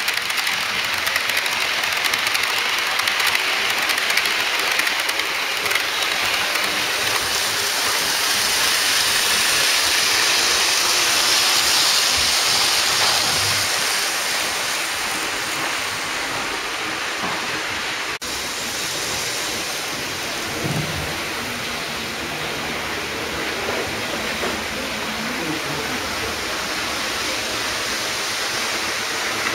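N-gauge model trains running on the layout's track: a steady hiss of wheels and small motors, swelling a little partway through, with an abrupt break about 18 seconds in.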